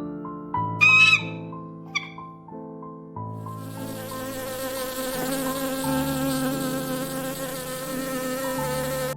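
Insect buzzing, steady with a slight waver, starting about three and a half seconds in, over soft piano music; two short high chirps come before it.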